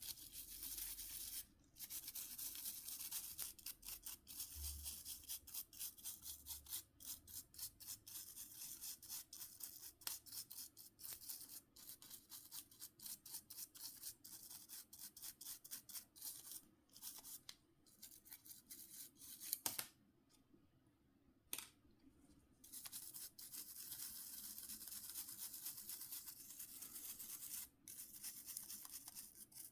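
A small brush scrubbing phone parts in rapid back-and-forth strokes, a dry, hissy scratching. The scrubbing stops for about three seconds about two-thirds of the way in, with two short clicks, then carries on.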